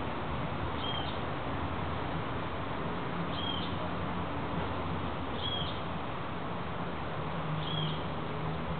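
A small bird gives a short, high chirp four times, about two seconds apart, over a steady background hiss.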